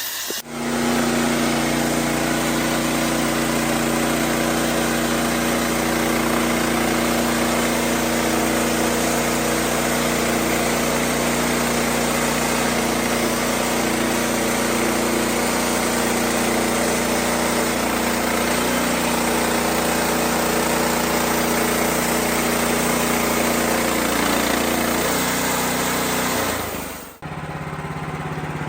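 An engine running steadily under an even hiss. Its pitch steps down a little near the end, and then it cuts off suddenly.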